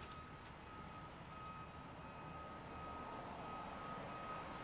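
Construction vehicle's backup alarm beeping steadily in long, evenly spaced beeps with short gaps, over the low rumble of diesel construction machinery running.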